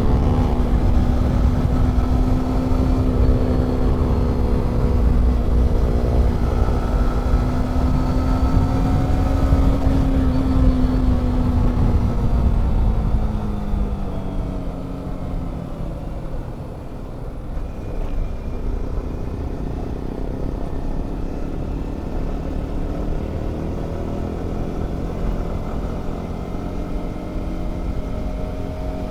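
Motorcycle engine running at a steady cruise, with wind rushing over the microphone. About halfway through, the engine note drops and gets quieter as the bike slows, then holds steady at the lower pace.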